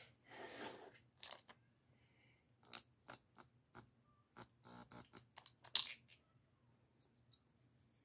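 Faint, scattered small clicks and scrapes from a plastic washing-machine drain pump being handled and worked by hand; the pump's impeller is sticking. The clearest click comes about two-thirds of the way through.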